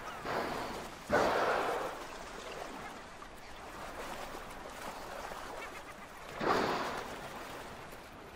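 Killer whales blowing at the surface: a loud breathy exhalation about a second in and another about six and a half seconds in, over a soft wash of water.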